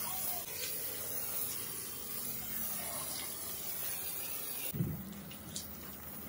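Water hose spraying onto a foam-covered car body, a steady hiss of water. About three-quarters of the way in it breaks off with a single thump and the sound turns quieter.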